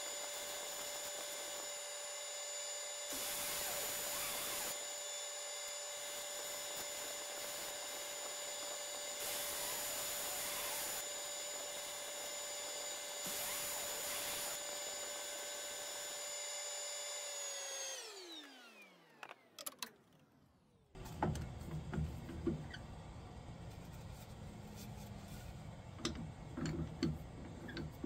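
Wood lathe running with a steady motor whine while a drill-driven sanding disc is pressed against the spinning cherry-burl plate in intermittent passes, each pass adding a rushing sanding noise. About 18 s in, the lathe is switched off and its whine falls away as it spins down. After that comes a low hum with light knocks and handling clicks.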